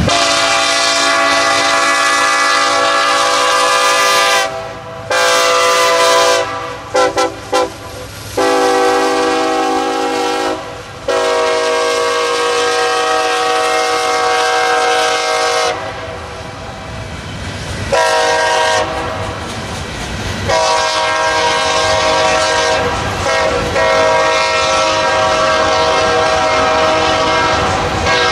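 Diesel freight locomotive air horn sounding a multi-note chord in repeated blasts: a long blast, a few short toots around seven seconds in, then more long blasts. Between blasts the rumble of the passing train is heard.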